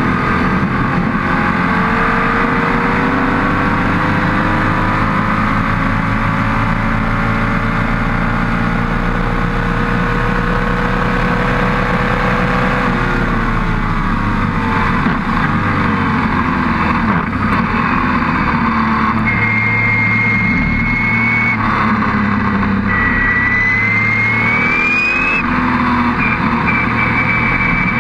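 Onboard sound of a Lola T70 Spyder's V8 racing engine at full throttle. For about twelve seconds it holds one long pull with a slowly rising pitch, then the pitch falls away as the car slows. In the second half it climbs again through the gears, with a high whine rising over the engine note.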